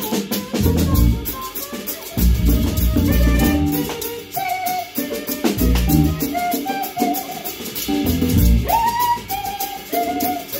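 Instrumental music with a drum kit keeping a steady beat, fast cymbal ticks over a bass line and a melody of short held notes.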